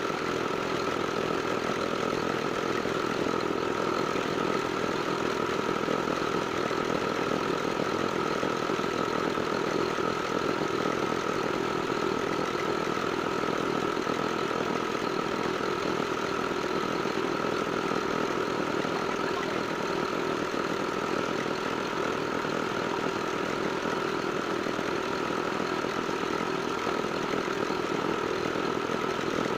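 Small Petter diesel engine of a mini concrete mixer running steadily at a constant speed.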